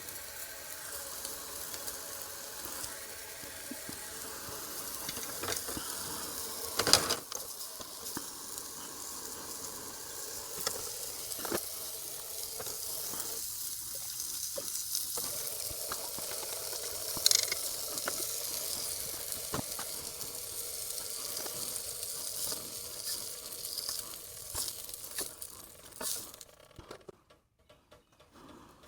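Sausage links frying, a steady sizzle with two sharp clicks, about 7 and 17 seconds in. The sizzle fades out near the end.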